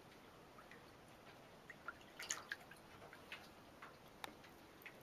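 Faint, scattered small drips and splashes of shallow water, a few sharp clicks among them, as a kitten shifts about in the water.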